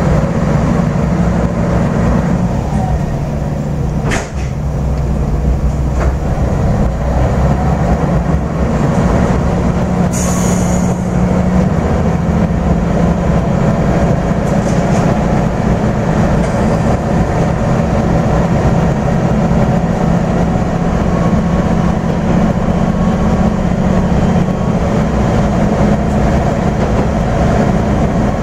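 AN8800 diesel railcar running under power, heard from inside the car: a steady low engine drone with track noise, and a couple of sharp clicks of the wheels over rail joints about four and six seconds in.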